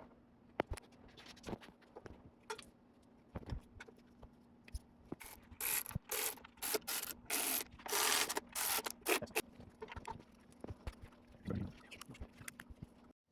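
Workshop handling noises: scattered clicks and knocks, then about four seconds of short, repeated rasping strokes, with a faint steady hum underneath.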